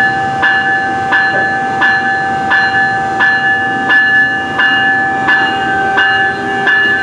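NJ Transit ALP-46A electric locomotive's bell ringing steadily, about three strokes every two seconds, as the train gets ready to pull out. A low hum rises near the end as the locomotive starts to move.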